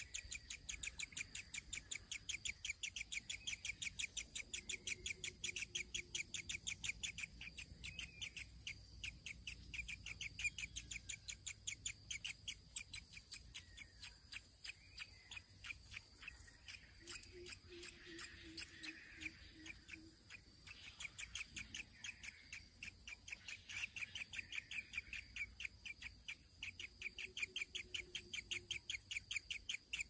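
A nestling begging with rapid, evenly repeated high chirps, about six a second, broken by a few short pauses. A soft, low call from another bird sounds three times in the background.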